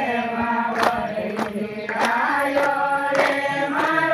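A group of voices sings a devotional garba refrain in long held notes, over a steady percussion beat of a little under two strokes a second.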